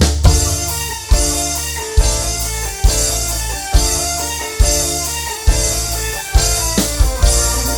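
A band playing through a PA sound system during a sound check: a guitar melody over heavy bass, with a strong drum beat a little under once a second.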